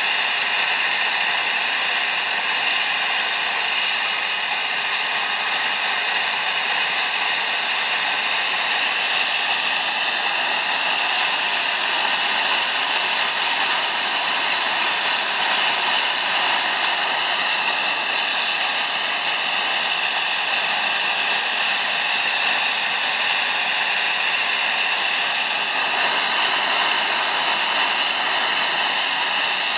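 Homemade turbocharger jet engine running steadily: a loud, even rushing roar with a steady high whine over it.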